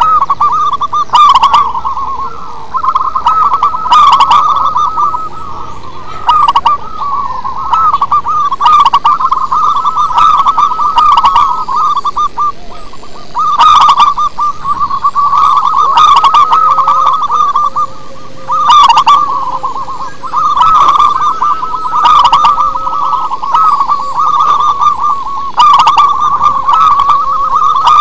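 Zebra doves (perkutut) singing: long rolling phrases of rapid cooing trills with short breaks every few seconds, and a sharp click every second or two.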